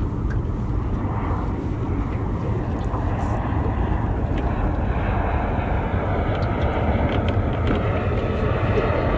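A steady low rumble with a rushing noise that grows louder over the second half, and a few faint light clicks.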